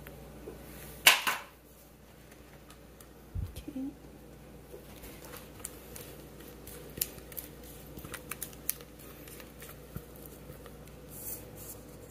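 Light clicks and taps of kitchen utensils and dishes being handled, with one sharp click about a second in and a dull thump a little later.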